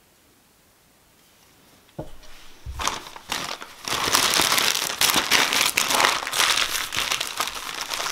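About two seconds of near silence, then newspaper gift wrapping is crumpled and pulled off a package by hand: a dense, continuous crinkling and rustling.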